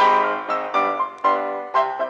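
Instrumental background music: pitched notes struck at an even pace, about two a second, each ringing out and fading, with a fuller chord at the start.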